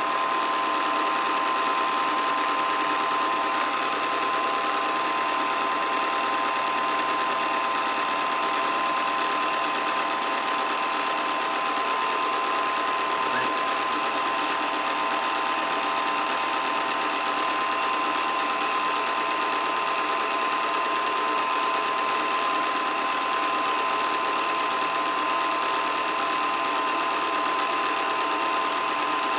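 8mm film projector running: a steady mechanical whir and clatter with a constant whine.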